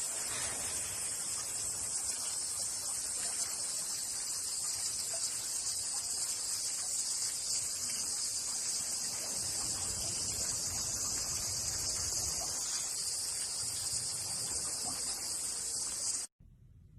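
Steady, dense high-pitched insect chorus that cuts off suddenly near the end.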